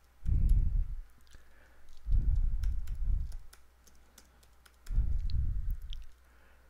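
Typing on a computer keyboard in three short bursts, the keystrokes heard as dull thumps with light clicks between them.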